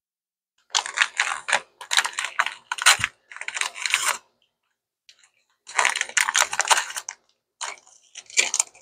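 Crinkly paper wrapper rustling and crumpling in several bursts as it is unwrapped by hand from a small plastic toy part.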